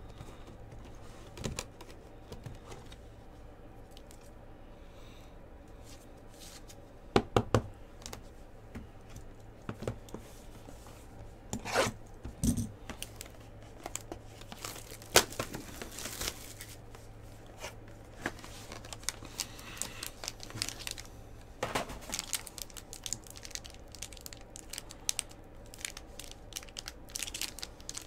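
Foil trading-card pack wrapper being torn open and crinkled by hand, with scattered sharp clicks and taps from cards and hard plastic top loaders being handled. Fairly quiet for the first few seconds, then the crackling and clicks grow busier toward the end.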